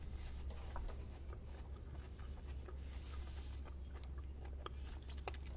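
Quiet chewing of a mouthful of salad, with soft scrapes and clicks of wooden chopsticks in a plastic salad bowl and one sharper click about five seconds in, over a steady low hum.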